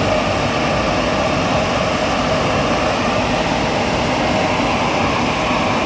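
Drying blowers of an automatic car wash running steadily at full power, a loud, even rush of air. This is the machine's drying stage after the wash.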